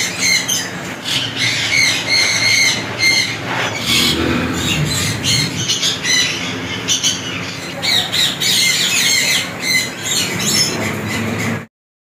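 Caged parrots squawking and chirping over a steady low hum, many calls overlapping with no break. The sound cuts off suddenly just before the end.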